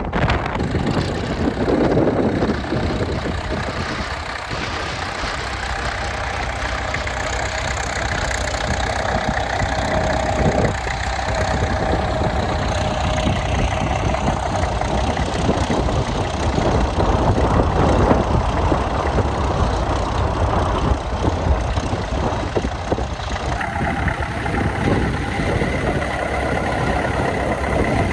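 McCormick International B450 tractor's four-cylinder diesel engine running steadily. A higher steady tone joins about 23 seconds in.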